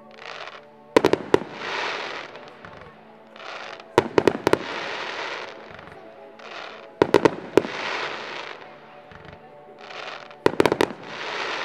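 Fireworks going off: four clusters of sharp bangs from shells bursting, about three seconds apart. Each cluster is followed by a second or so of dense crackling from the glittering stars.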